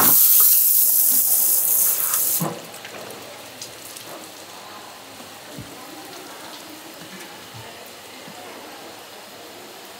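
Running water spraying hard for about two and a half seconds, then shutting off, leaving a low background with a few faint knocks.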